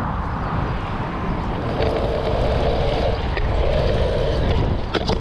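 Stunt scooter wheels rolling on rough tarmac: a steady rumble with a hum for a few seconds in the middle, then a few sharp clacks near the end.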